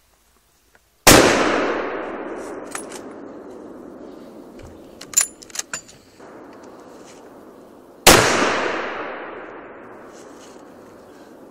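Two rifle shots about seven seconds apart, each a sharp crack followed by a long echo that dies away over several seconds. Between them comes a quick run of metallic clicks as the rifle's action is worked to chamber the next round.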